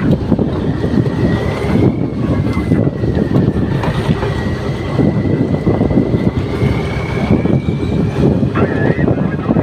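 Fishing boat running at sea, its engine noise mixed with wind buffeting the microphone and water rushing along the hull. A thin, steady high whine holds through most of it and stops shortly before the end.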